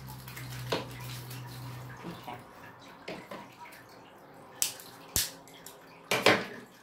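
A small plastic parts bag crinkling and rustling as it is handled, then a couple of sharp snips as scissors cut it open, and a louder clatter and rustle near the end as things are set down on the shelf.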